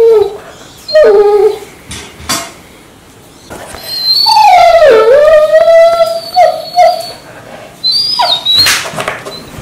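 Golden retriever making odd drawn-out whining calls with a slipper held in its mouth, an attention-seeking noise it uses to wake its owner. A short cry comes about a second in, then a long wavering call that dips in pitch in the middle, and a brief high one near the end, with a few knocks in between.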